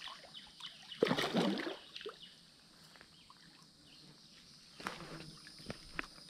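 A hooked bowfin thrashing in shallow water at the bank, with a loud splash about a second in and a few smaller splashes and sharp splats near the end.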